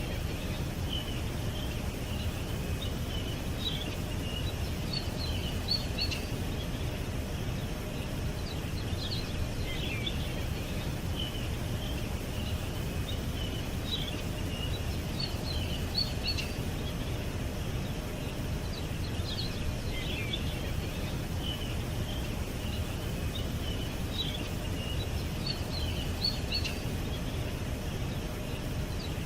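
Small songbirds chirping in short clusters that recur every five or six seconds, over a steady low rumble of background noise.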